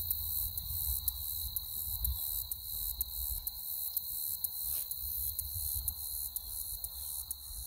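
Outdoor ambience: wind rumbling on the microphone, under a steady high-pitched tone with faint ticks about twice a second. The model airplane itself is not heard.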